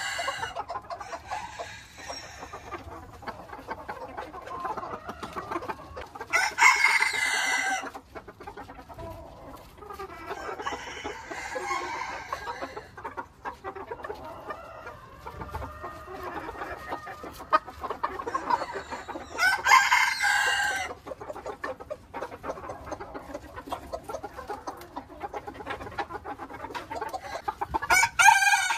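Ko Shamo gamecocks crowing: two loud crows of about a second and a half, one about a quarter of the way through and one about two thirds through, and a third beginning at the very end, with quieter clucking in between.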